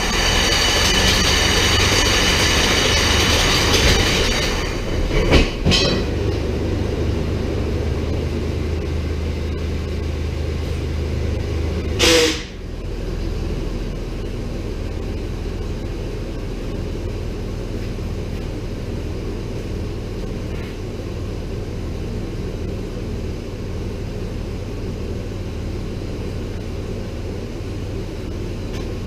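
1998 Chevy Blazer's V6 engine running in gear, driving a homemade rubber track on stands. For the first few seconds there is a high squeal over the drone of the drivetrain, with a couple of knocks around five seconds in. About twelve seconds in comes a loud short clank as the track catches on something and the bar holding the far wheel pops off, after which the engine runs on steadily.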